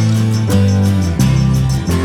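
Background music: a guitar-led instrumental with a steady beat and held bass notes changing about every half second.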